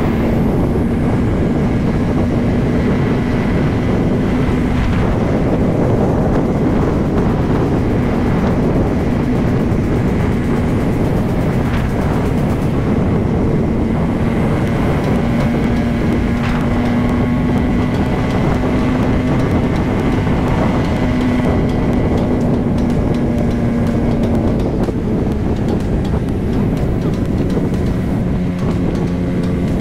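Motorcycle engine running steadily at highway cruising speed, its note holding an even pitch under a heavy rush of wind on the microphone.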